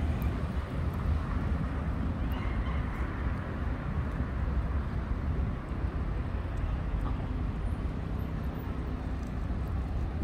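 Outdoor city street ambience: a steady low rumble of traffic with no single event standing out.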